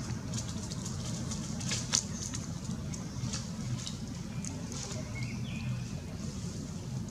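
Dry fallen leaves crackling in short, scattered ticks as a baby macaque handles them and shifts among them, over a steady low rumble.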